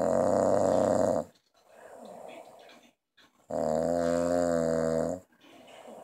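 A man snoring heavily in his sleep after drinking. Two loud snores, each about a second and a half long, come at the start and about three and a half seconds in, with quieter breaths between them.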